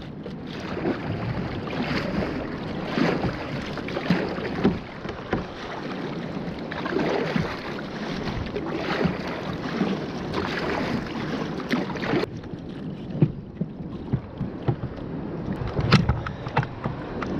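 Kayak paddle strokes through choppy sea water, a splashing surge about every two seconds. About two-thirds of the way in the splashing drops away, and near the end there are a few sharp clicks and knocks.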